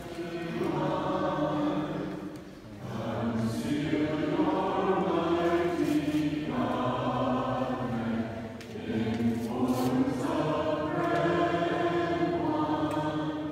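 Congregation singing a hymn together, in long phrases with brief pauses between them.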